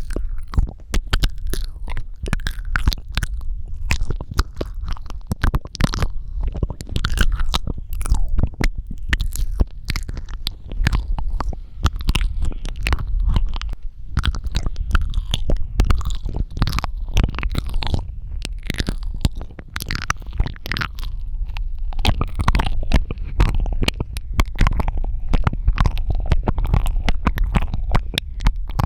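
Close-miked mouth sounds for ASMR: a rapid, irregular run of wet clicks, smacks and tongue pops, with a steady low rumble underneath.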